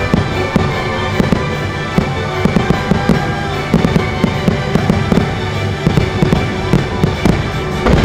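Aerial fireworks bursting in rapid, irregular cracks and booms, with a strong burst near the end, over steady show music.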